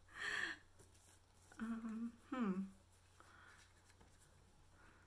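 A woman's wordless vocal sounds: a short breathy laugh at the start, then two brief hums, the second falling in pitch, about two seconds in.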